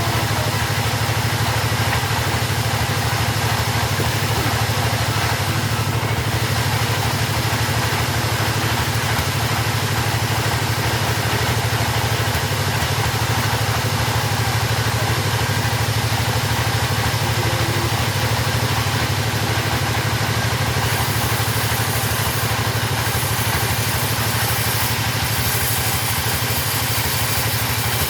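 Chainsaw engine running steadily at an even speed, with no change in pitch or level.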